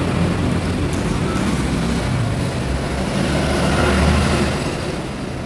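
Road traffic going by on a busy highway, a steady rumble that swells as a vehicle passes about four seconds in and then eases off.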